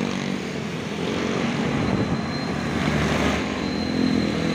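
Steady rush of wind on the microphone of a moving rider, mixed with the running engines of the surrounding street traffic: motorcycles and a motorized tricycle.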